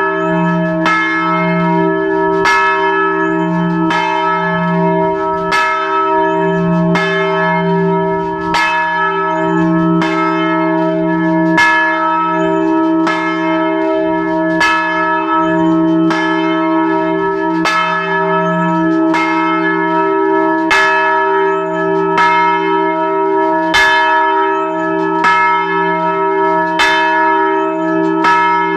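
A large church bell swinging and ringing, heard up close in the belfry. Its clapper strikes about once every one and a half seconds, each stroke landing on the hum still ringing from the one before.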